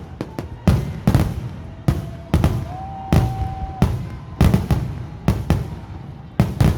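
Fireworks going off: about a dozen sharp bangs at irregular intervals, some in quick pairs, each trailing a low rumble.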